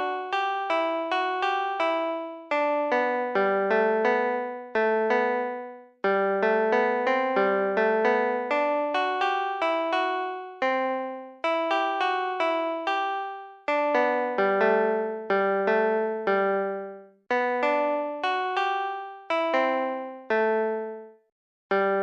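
Keyboard music: a simple melody played with an electric-piano sound, note by note. Each note strikes and fades, in short phrases with brief pauses between them.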